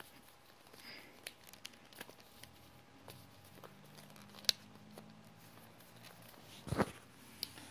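Small clicks and rustles of a smartwatch being handled and pushed back into its box packaging, with a sharp click about four and a half seconds in and a louder thump near seven seconds.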